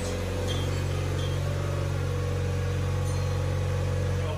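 Engine of the small vehicle driving the round-bale unroller, running steadily with a low, even hum while a bale is rolled out across the barn floor.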